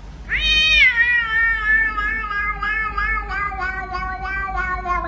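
A domestic cat's single long, drawn-out meow. It jumps up sharply just after the start, then slides down and holds, wavering in pitch throughout as it slowly sinks lower.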